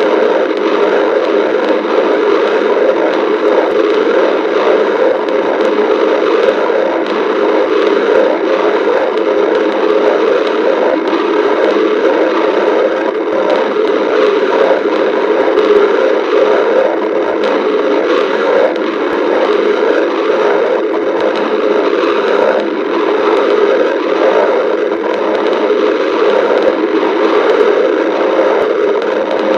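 Stomach growling: a continuous, crackling gurgle from the gut that runs without a pause.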